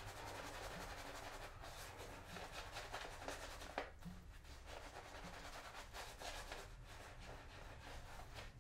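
Badger-hair shaving brush scrubbing shave-soap lather on a man's face: a faint, continuous soft rubbing made of irregular brush strokes, with one slightly stronger stroke near the middle. This is face lathering, working water into the lather to build it up thick.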